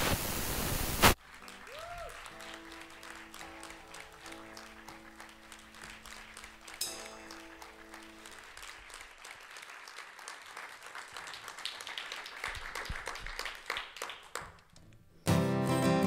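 A burst of static hiss that cuts off about a second in, then several seconds of soft held musical notes. Audience applause follows and grows over several seconds. Acoustic guitar strumming starts loudly near the end.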